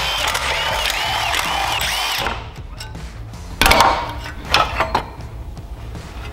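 Cordless power driver with an 8 mm socket running for about two seconds, backing out a bolt, over background music. A loud knock comes a little after three and a half seconds, then a few lighter knocks.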